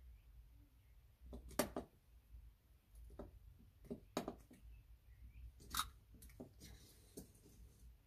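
Hands working an old rubber windshield seal free from the pillar of a 1977 VW Bus: a handful of short, faint taps and rubs, the clearest about one and a half, four and six seconds in.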